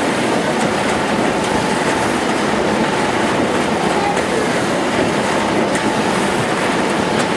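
Rotary die cutting machine with a chain feeder running steadily, a continuous mechanical noise with a faint steady tone.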